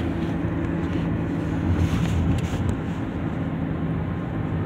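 Moving car heard from inside the cabin: a steady low hum of engine and road noise.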